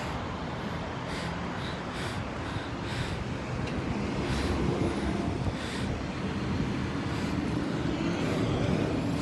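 Road traffic, a steady rumble of passing vehicles that grows louder from about four seconds in.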